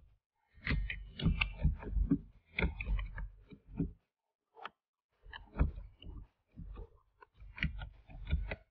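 Computer keyboard typing: quick runs of keystroke clicks, with a short pause of about a second in the middle before the typing resumes.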